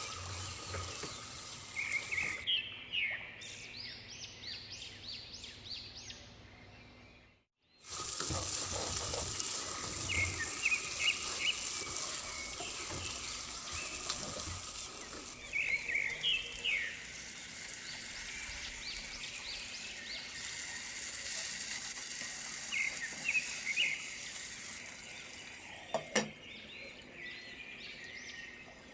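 Tripe frying in oil in a pan, a steady sizzle, with birds chirping repeatedly in the background. The sound breaks off for a moment about a quarter of the way through.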